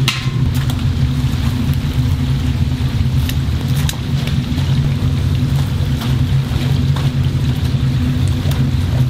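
Battered chicken pieces deep-frying in a large vat of bubbling oil, over a loud, steady low machine rumble. Light metal clicks from a wire strainer and kitchen scissors working in the oil come a few times.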